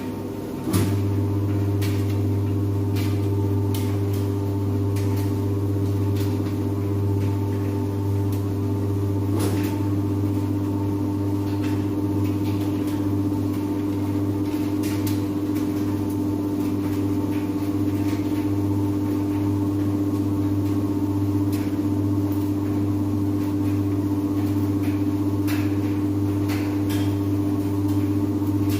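Speed Queen industrial washing machine running: a steady motor hum that steps up in level about a second in, then holds even, with scattered light clicks.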